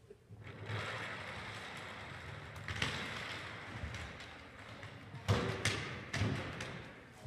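Plastic gym scooter board rolling across a wooden gym floor: a steady rolling rumble and hiss for several seconds. It is followed by several loud thuds on the floor in the last couple of seconds.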